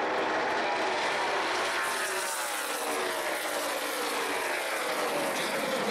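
NASCAR Nationwide stock cars' V8 engines running past on the track, the engine note falling steadily in pitch over about three seconds as the cars go by.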